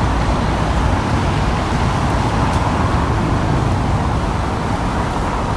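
Steady road traffic noise from a busy city street, a continuous rush of passing cars.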